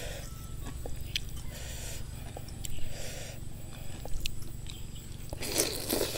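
Close-up eating sounds: fingers working soft, wet rice noodles in sauce with small clicks and soft mouth sounds, then a louder slurp of rice noodles into the mouth near the end.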